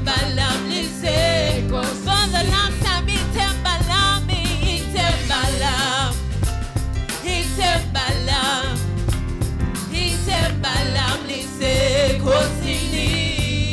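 A woman singing a gospel worship song into a microphone, her voice wavering with vibrato on held notes, over a live band with drums and bass.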